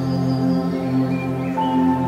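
Slow, relaxing background music of steady, held tones.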